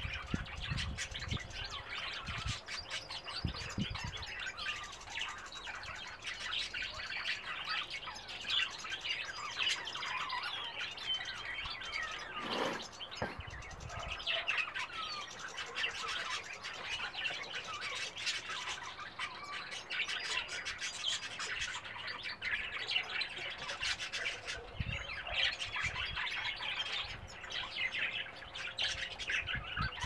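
European goldfinches twittering, a continuous stream of short, high chirps and trills.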